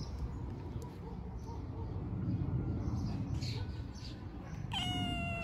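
A cat meows once near the end, a long steady call that falls slightly in pitch, over a low background rumble.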